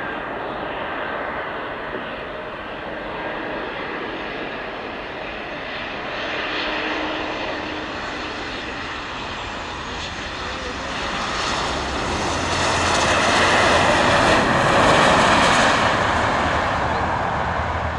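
Embraer 195LR jet airliner landing, its two General Electric CF34-10E turbofans running with a steady whine through the approach and touchdown. The jet noise grows louder about twelve seconds in as the aircraft rolls out along the runway, then eases near the end.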